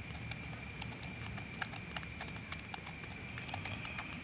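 Baby monkey suckling milk from a feeding bottle's teat: irregular clicks and smacks of its mouth and tongue on the teat.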